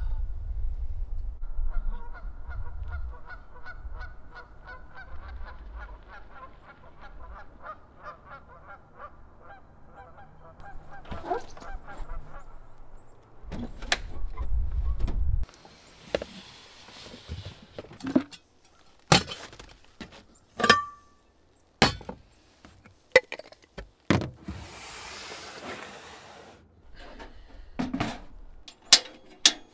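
A flock of geese honking, a long run of quick repeated calls that dies away after about twelve seconds, over bursts of low rumble. Then handling noises at an SUV's open rear hatch: sharp knocks and clicks, a brief metallic ring, and a wooden slide-out table sliding.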